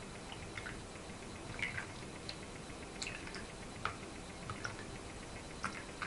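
Faint, scattered light clicks and taps, about nine at irregular intervals, as a container is handled over the paper cups of electrolyte.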